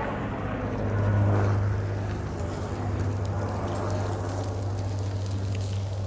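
Potatoes frying in a pan: faint crackling that picks up about halfway through, over a steady low hum.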